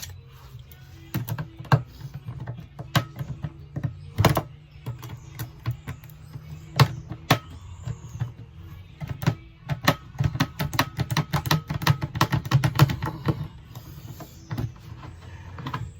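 Plastic water jug being cut open by hand: a run of sharp, irregular clicks and snaps that come thick and fast for a few seconds near the end. A steady low hum of background music runs underneath.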